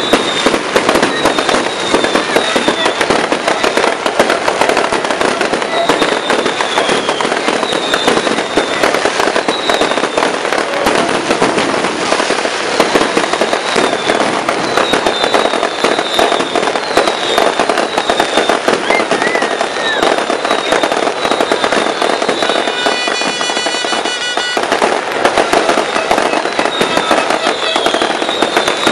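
Dense, continuous barrage of exploding fireworks: rapid crackling bangs with no pause. About 23 s in, a buzzy steady tone sounds over them for about two seconds.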